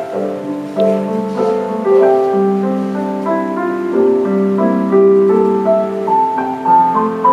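Piano music, many held notes overlapping in a slow melody.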